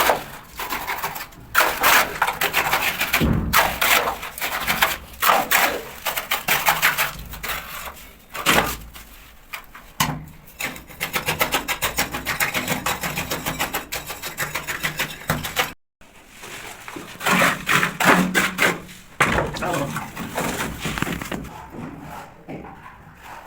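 Repeated sharp knocking and tapping on a hard material, with a fast, even run of taps in the middle. It stops abruptly for a moment about sixteen seconds in, then the knocking resumes.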